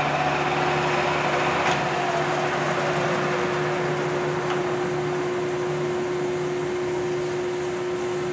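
1973 American 19 x 64 heavy-duty engine lathe running with its spindle turning under power, very smooth and very quiet. It is a steady mechanical hum, with a steady higher tone that comes in just after the start.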